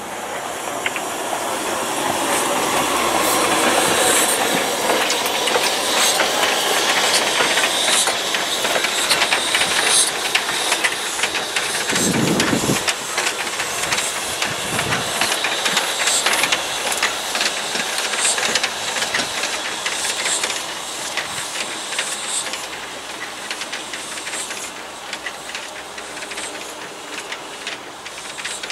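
Mallet steam tank locomotive 414 moving slowly past close by, hissing steam, with many sharp clicks from the wheels over the rails and a couple of low thumps near the middle. The sound builds over the first few seconds and eases off in the last several.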